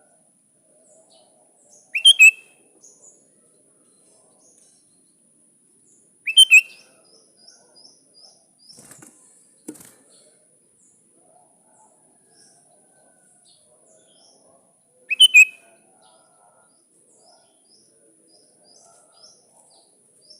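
Sooty-headed bulbul calling: three short loud calls about two, six and fifteen seconds in, each a quick two-note phrase. Faint high twittering and a thin steady high tone sound in the background.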